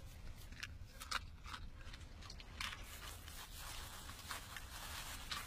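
A dog chewing and crunching food: short, irregular crunches and clicks.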